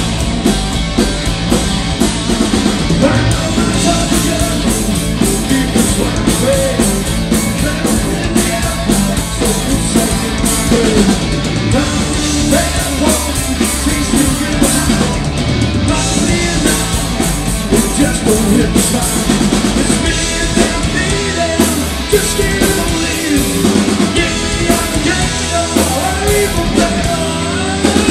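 Hard southern rock band playing live: electric guitars, bass guitar and drum kit together in a steady, loud band sound.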